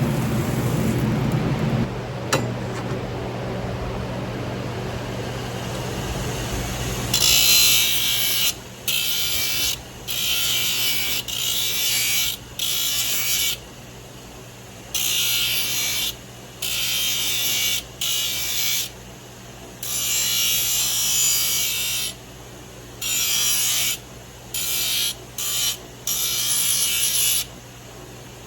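Farrier's tool working a hoof or horseshoe: repeated bursts of harsh high scraping, each half a second to two seconds long with short pauses, starting about seven seconds in, over a steady low hum.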